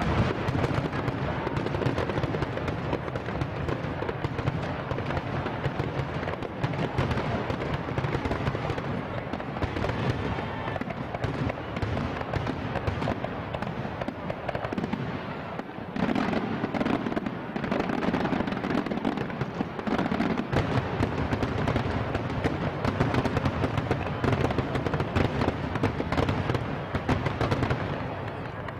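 Aerial fireworks finale barrage: shells bursting in rapid, overlapping succession, deep booms mixed with crackling and no break between them. It slackens briefly about halfway through, then comes back at full strength.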